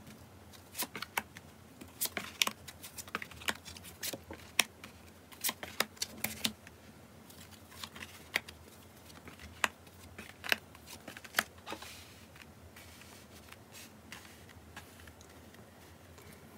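Tarot cards being dealt and laid out one after another: a run of irregular sharp card snaps and taps that thins out after about twelve seconds.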